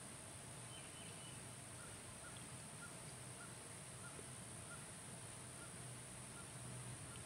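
Wild turkeys clucking softly: a faint, even series of short notes, a little under two a second.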